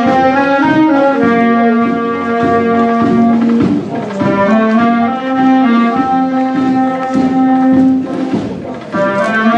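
Portuguese wind band (banda de música) of clarinets and brass playing a tune while marching. The melody moves in sustained notes over a lower held line, with brief breaks between phrases about four and nine seconds in.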